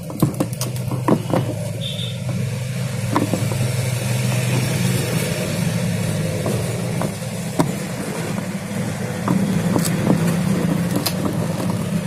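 Screwdriver driving screws into a washing machine's plastic base, giving scattered small clicks and ticks, over a steady low mechanical hum.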